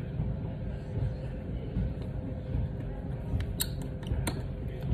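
A few small sharp clicks near the end, as the display's flex-cable connectors are pressed and snapped onto the iPhone XR's logic board, over a steady low room rumble.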